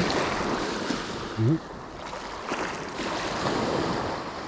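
Sea waves washing, with wind noise on the microphone, swelling and easing. A brief rising voice sound cuts in about a second and a half in.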